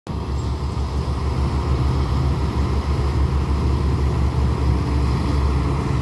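Tracked rice combine harvesters' engines running steadily with a low, even rumble.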